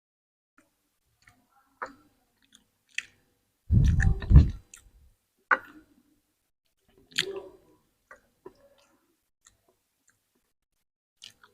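Close-up eating sounds: short crackly bursts of chewing and crunching, with a louder low thump about four seconds in.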